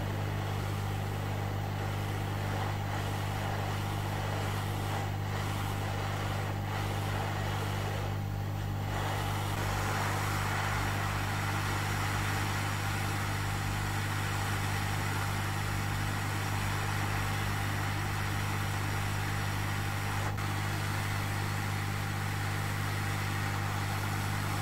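Hot air rework station's blower running steadily, a low hum under a hiss of hot air, the hiss growing a little louder about ten seconds in. The air is heating a circuit board to melt the solder under a BGA chip so it can be lifted off.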